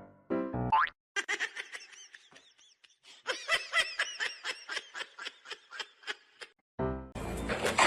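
High-pitched laughter in quick, evenly spaced pulses, in two runs, with a loud noisy burst starting near the end.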